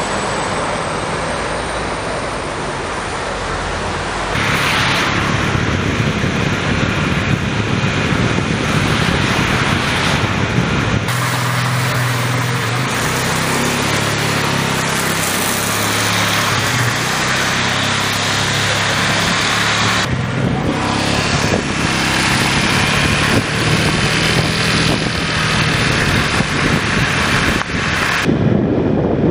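Outdoor street noise with motor vehicles passing, in several clips that cut abruptly from one to the next.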